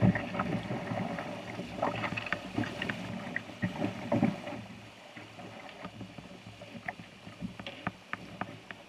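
Rapids running past a canoe, water sloshing and slapping against the hull, with scattered small knocks. Louder surges in the first half, quieter after about five seconds.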